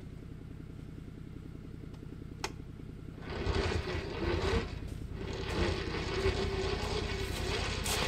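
A Can-Am Defender UTV's engine idling, then its electric winch starts about three seconds in and runs under load pulling the stuck machine out of a creek, with a short pause near the middle before it runs on. A single click comes just before the winch starts.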